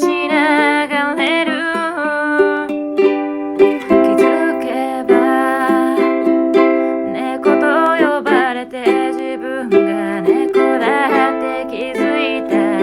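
Ukulele music: a pop song played on ukulele, chords under a wavering melody line that carries on without a break.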